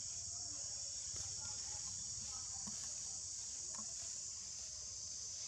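Steady, high-pitched insect chorus droning without a break, with a few faint short sounds over it.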